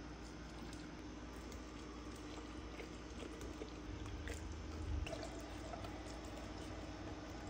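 Faint wet squishing and dripping of sauce-coated kimchi being packed into a glass jar by a gloved hand and pressed down, with a few small clicks. A steady low hum runs underneath.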